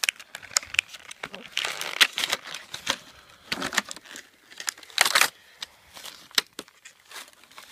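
Clear plastic blister packaging crinkling and crackling in irregular bursts, with sharp clicks, as hands work it open to free a die-cast toy car.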